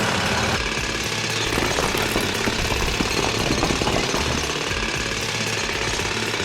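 Continuous rapid mechanical hammering, many strikes a second at an even level, over a low motor hum, the sound of road-repair work starting on the damaged mini road.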